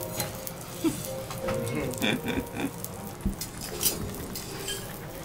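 Foie gras sizzling on a steel teppanyaki griddle, with a few sharp clicks of metal utensils against the plate.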